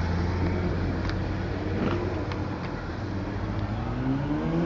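Cars cruising slowly past on a street, with a steady low engine hum. Near the end a passing car's engine, the Dodge Magnum's, rises in pitch as it accelerates by.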